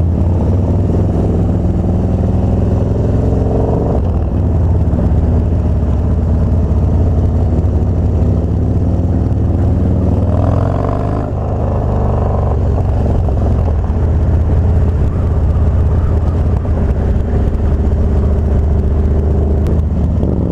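Harley-Davidson Dyna Street Bob's air-cooled V-twin engine under way, heard from the rider. It rises in pitch as the bike accelerates, drops about four seconds in with an upshift, then holds a fairly steady cruise.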